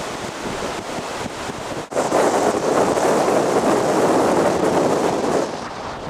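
Blizzard wind blowing hard across the microphone, a rushing that gets louder about two seconds in and eases off shortly before the end.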